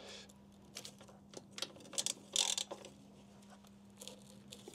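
Ratchet wrench clicking as a T40 Torx pinch bolt on a motorcycle exhaust clamp is undone: irregular clicks and small metal knocks, busiest about two seconds in, over a faint steady hum.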